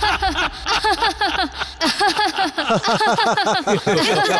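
A cartoon character's voice laughing, a long unbroken run of quick 'ha-ha-ha' pulses, several a second.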